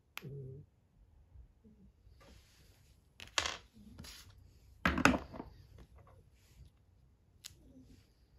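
Small metal parts being handled and set down on a wooden workbench: a few light clicks and two louder clatters, about three and a half and five seconds in, the second the loudest.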